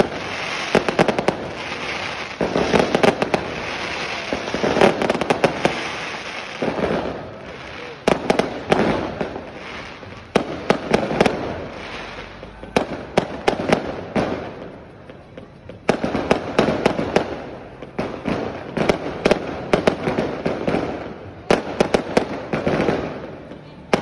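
Fireworks going off: rapid sharp bangs and crackling bursts from aerial shells, coming in clusters with short lulls between.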